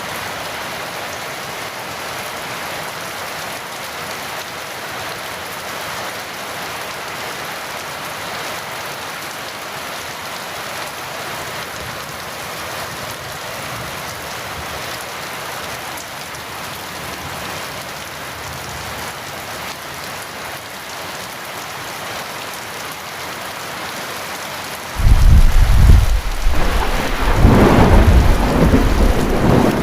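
Heavy rain falling steadily, then near the end a sudden loud crack of thunder that rolls on as a deep rumble.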